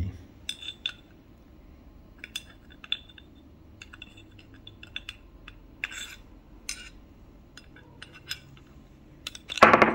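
Scattered light metallic clicks and clinks of a thin metal rod being poked inside a RAW HM1000X air rifle's action block, pushing the valve body out from the hammer-spring side.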